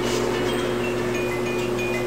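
A steady low drone with short, high chiming tones scattered over it.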